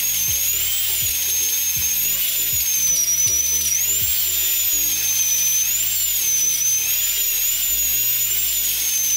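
High-pitched whine of a dentist's drill that wavers up and down in pitch, over background music.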